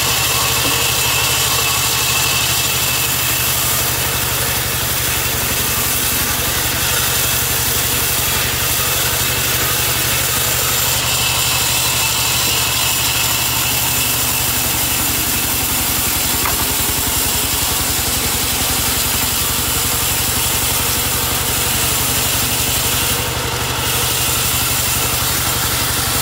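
Large sawmill band saw running with a steady mechanical drone and hiss while a plank is fed along its blade.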